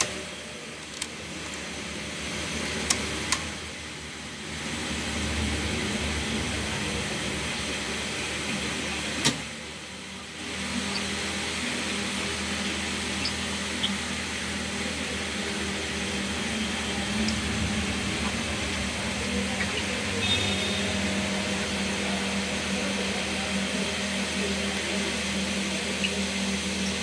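National NV-G200EM VHS recorder's mechanism running with its video head drum spinning, a steady motor whir. A few sharp clicks come in the first ten seconds, then it settles into a steady run. The machine is being run after a four-head drum repair.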